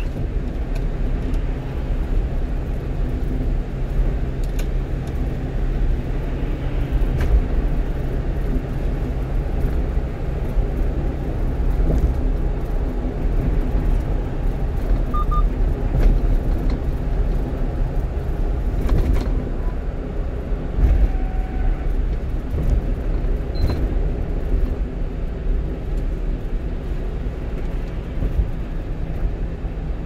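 Steady low drone of a one-ton truck cruising at highway speed, heard inside the cab: engine hum under road and tyre rumble.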